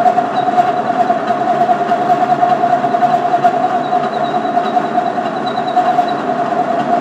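Center lathe running during a facing cut, giving a loud, steady machine hum at one constant pitch with noise beneath it.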